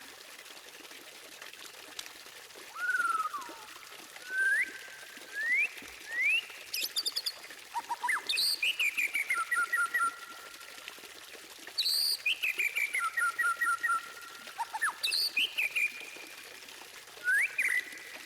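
White-rumped shama (murai batu) singing. It gives clear whistled phrases with rising and falling glides, then runs of quick repeated notes topped by very high sharp notes, in bursts with short pauses between them.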